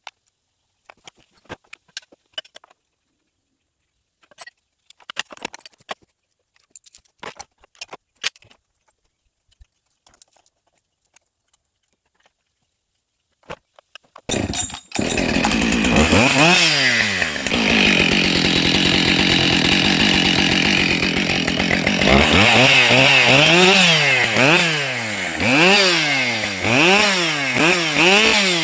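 Faint scattered clicks, then a Husqvarna two-stroke chainsaw with a 20-inch bar starts about halfway in. It revs up and holds at high revs for several seconds, then is revved up and down repeatedly.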